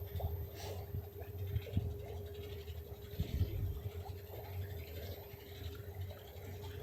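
Steady whine of an electric narrowboat's drive motor, with a low hum underneath and a few faint knocks.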